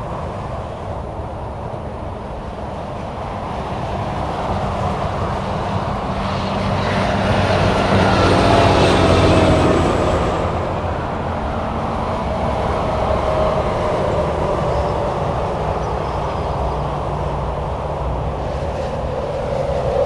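Steady highway traffic: a continuous rumble and tyre hiss of cars and trucks going by at speed. One vehicle passing close is loudest about eight to ten seconds in, its tone dropping as it goes by.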